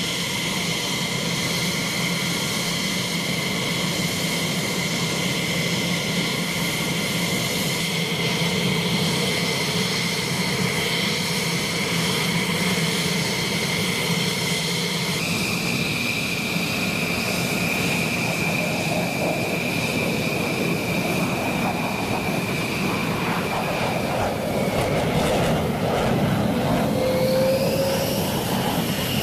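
An F-16C Block 52's Pratt & Whitney F100 turbofan running at ground idle: a steady high whine over a rumble, stepping to a slightly higher whine about halfway through. Near the end the whine rises and then falls again as the jet moves out to taxi.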